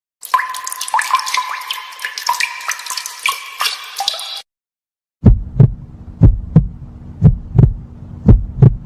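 A heartbeat sound effect: low beats in close lub-dub pairs, about one pair a second, starting about five seconds in. Before it, a separate short effect of rapid clicks and tinkling tones that stops abruptly.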